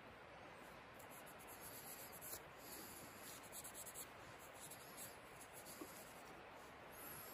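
Faint rubbing and rustling of a cloth working tung oil into a carved pear-wood fork.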